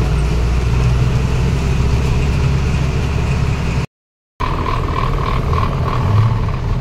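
Heavy goods truck's diesel engine running, heard from inside the cab while driving. The sound cuts out for about half a second near the middle, and afterwards a steady high whine sits over the engine.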